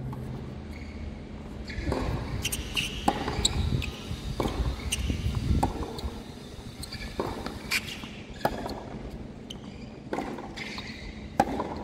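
Tennis rally on a hard court: sharp pops of rackets striking the ball and the ball bouncing, about a dozen at irregular spacing.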